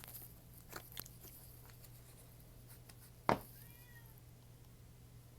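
A cat meows once, faintly and briefly, just after a sharp click a little past three seconds in, over a low steady hum; a few soft clicks come earlier.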